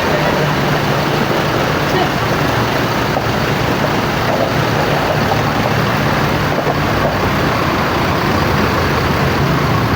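Large tour bus engines running steadily, a constant low hum under general vehicle and traffic noise, with voices mixed in.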